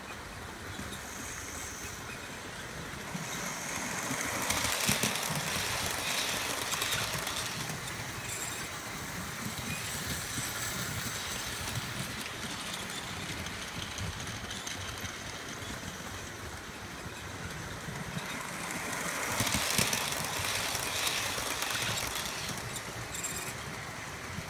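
Model freight train running on the track, its wheels rattling and clicking over the rail joints under the steady hum of the running train. The sound swells as the train passes close, about four seconds in and again near twenty seconds.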